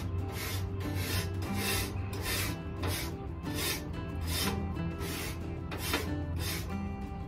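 Wire brush scrubbing the cast-iron top of an old wood-burning cook stove, rasping back and forth in even strokes about two to three times a second, as part of a first cleaning of the stove.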